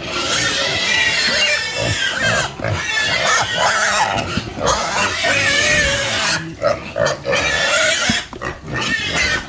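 A group of pigs squealing together, many high wavering calls overlapping almost without a break, with two short lulls in the second half.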